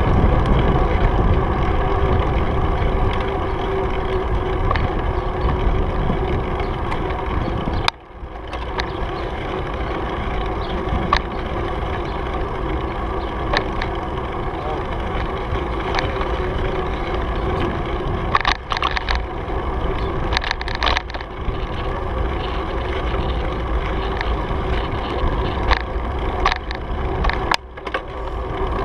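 Riding noise of a bicycle rolling along a paved trail: wind buffeting the camera's microphone over the rumble of the tyres, with frequent small clicks and rattles from bumps. The noise drops out briefly about eight seconds in and again near the end.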